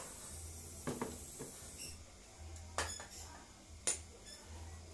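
Small canister gas torch hissing as it heats an aluminium motorcycle engine crankcase, cutting out a little before two seconds. Then a few metallic clinks as parts are handled, the two loudest near three and four seconds in, ringing briefly.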